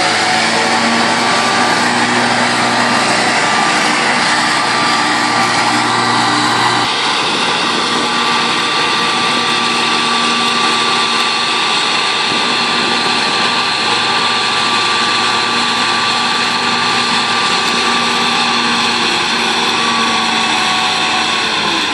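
Compact tractor engine running steadily at working revs while driving a rear-mounted mower through grass, with a steady whine over the engine note. The engine note shifts about seven seconds in.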